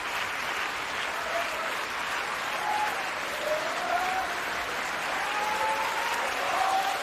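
Audience applauding steadily, with a few voices calling out over the clapping. The soundtrack is played backwards.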